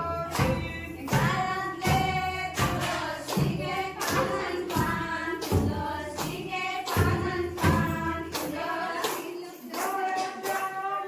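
Voices singing a fugdi folk song from Konkan, with a sharp beat of claps or percussion about every 0.7 seconds keeping time.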